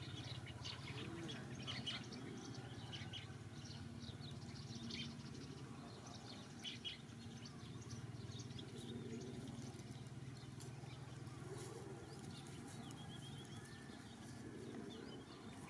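Birds chirping, short scattered calls, over a steady low hum.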